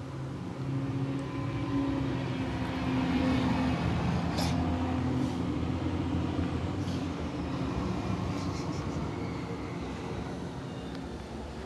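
English bulldog snoring in its sleep: long, low, steady snores, growing louder about a second in, with a short break around four seconds.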